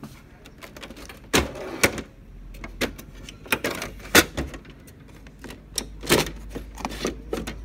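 Plastic clicks, knocks and clunks from an HP Laser MFP printer's cover and inner parts being opened and handled, with the sharpest knocks about 1.4, 1.9, 4.2 and 6 seconds in.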